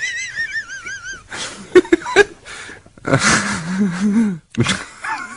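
A man's helpless laughing fit. A high, wavering squeal of laughter breaks off after about a second. Gasping breaths follow, then a lower, shaking laugh that lasts over a second near the end.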